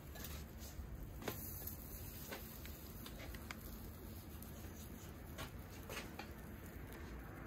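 Faint soft squishing of a filling being squeezed from a piping bag, with a few light clicks, over a low steady hum.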